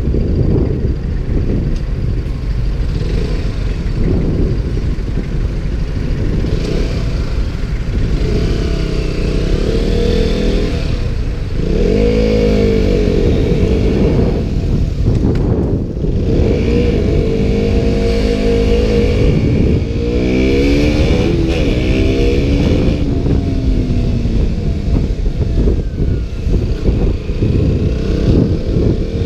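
KTM Duke motorcycle engine under way, its note climbing and dropping several times as the bike accelerates and slows. Heavy wind rumble sits over everything, heard through a GoPro's stock microphone inside its waterproof case.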